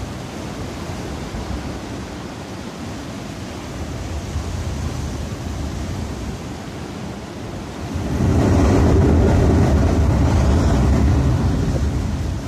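Sea blowhole: waves washing through a rocky gap, a steady rushing. About eight seconds in, a wave drives seawater up through the hole and a much louder gushing rush of spray follows for about four seconds, easing near the end.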